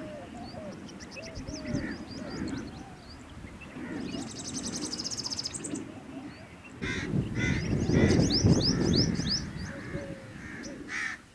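Several birds calling together. Short high chirps come in runs, a rapid high trill sounds for under two seconds mid-way, and a louder stretch of calls with quick rising whistles follows in the second half.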